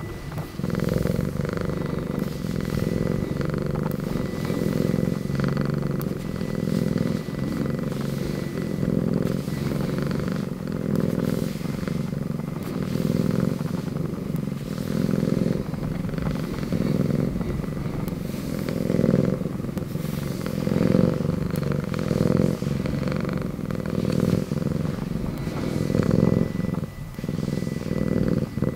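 A domestic cat purring steadily while being stroked, a low continuous rumble that swells and eases with each breath about every two seconds.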